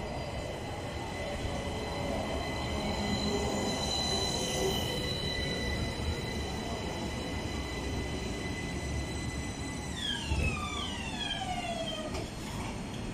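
Electric tram pulling into a stop: wheels rumbling on the rails under a steady high electric whine. About ten seconds in, a set of whining tones falls in pitch together as the tram brakes to a halt, dying away about two seconds later.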